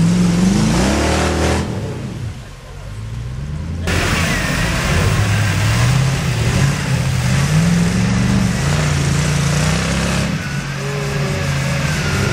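Rock crawler buggy's V8 engine revving up and down repeatedly under load as it claws up a muddy slope. The sound drops away briefly about two seconds in, then returns abruptly with the engine again rising and falling in pitch.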